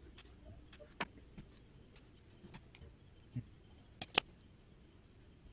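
A few short, sharp clicks: scissors snipping thin hookup wire, then the wire and small plastic parts being handled on a tabletop. The loudest click comes about four seconds in.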